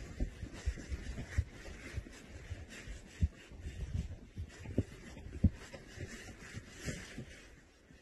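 Irregular low thumps and rumble on a phone microphone, over a faint hiss.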